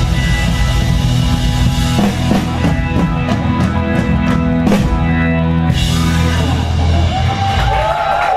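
Live rock band ending a song: a held chord under a run of drum kit hits and cymbal crashes, the band stopping about seven seconds in as the crowd starts to cheer.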